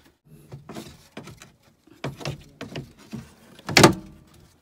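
Metal cover and compartment door of an Onan QG 4000 RV generator being fitted and closed: a series of light knocks and rattles, then a louder knock shortly before the end as the door shuts.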